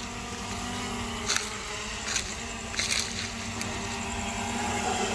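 A steady motor hum, one unchanging pitch with its overtones, with four short sharp clicks spread through it.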